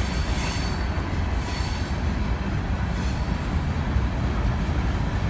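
Open-top freight cars of a CSX manifest train rolling past close by: a steady heavy rumble of steel wheels on the rails, with a faint high wheel squeal over it.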